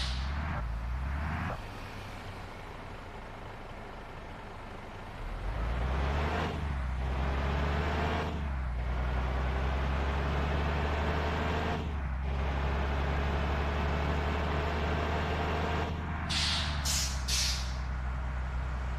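A tour bus's diesel engine running, its note picking up about five seconds in and breaking off briefly three times, as when it pulls away and shifts up. Near the end come three short hisses of released air from the bus's air system.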